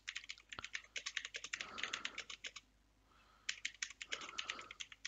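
Typing on a computer keyboard: quick runs of keystrokes, with a pause of about a second midway.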